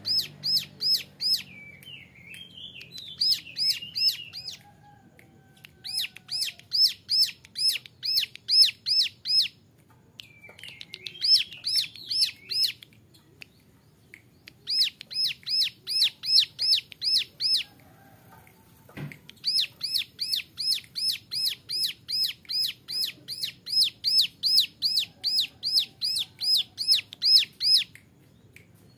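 A young ciblek gunung (mountain prinia) singing in its 'nembak' style: bouts of sharp, rapidly repeated high notes at about three a second, broken by short twittering phrases and pauses. A single brief knock falls about two-thirds of the way through.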